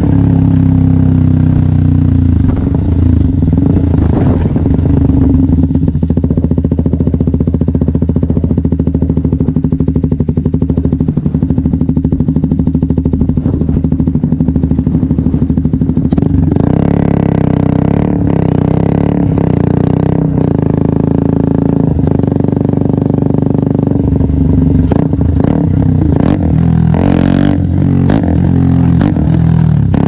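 KTM 125 Duke's single-cylinder four-stroke engine running, steady for the first half, its note changing about halfway through, with short breaks and knocks near the end.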